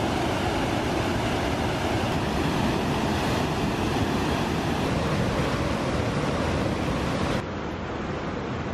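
Whitewater of Rainie Falls, a rapid on the Rogue River, rushing steadily over rocks. It turns slightly softer near the end.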